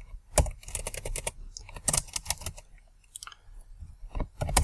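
Computer keyboard being typed on: irregular key clicks in short runs with brief pauses between them.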